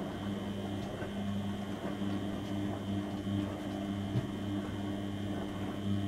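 Beko WM74155LS washing machine tumbling a wash load, its brushed motor turning the drum with a steady hum and a faint high whine while the laundry churns through soapy water.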